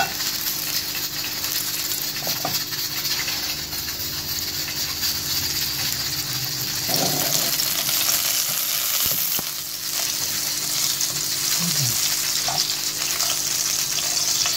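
Desi ghee melting and sizzling in a hot nonstick pan, a steady crackling hiss, while a metal spoon stirs it around the pan. By the end the ghee has melted and is bubbling.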